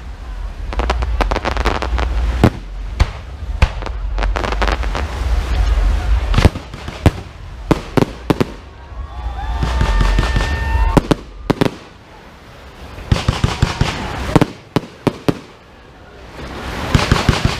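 Aerial fireworks going off in quick succession: sharp bangs and crackling over deep booms. There is a lull about two-thirds through, then a fresh run of sharp cracks near the end.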